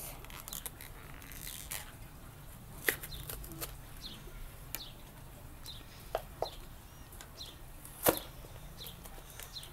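Clicks and crinkles of plastic toy packaging being handled and pried open, with a sharp snap about eight seconds in. Birds chirp briefly in the background, short falling calls every second or so.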